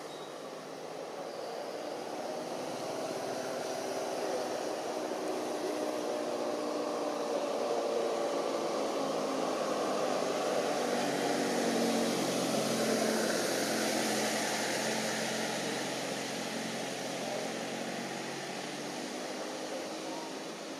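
An aircraft passing over: a steady engine drone with a slowly drifting pitch, swelling to its loudest about halfway through and fading again.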